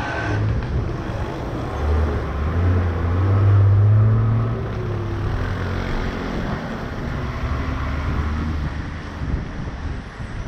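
Car driving on a wet road: steady road and engine noise, with a deeper engine hum swelling to its loudest about four seconds in and fading out a few seconds later.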